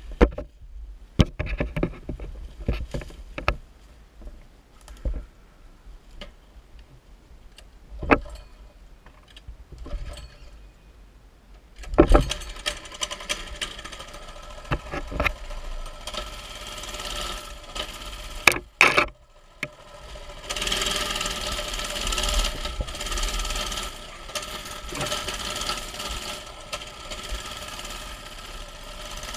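Scattered knocks and thumps, then from about twelve seconds in a mini bike's small engine running steadily. The engine drops out briefly after a couple of sharp clicks a little past the middle, then runs on.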